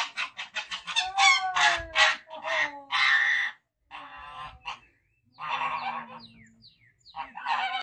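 White domestic goose honking: a fast string of short honks at first, then longer, louder honks in groups with short pauses between them, as it is picked up.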